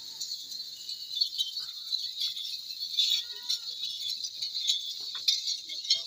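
Metal ankle rings on a herd of Makhi Cheeni goats jingling as the animals shuffle, over steady cricket chirring, with a faint goat bleat about three seconds in.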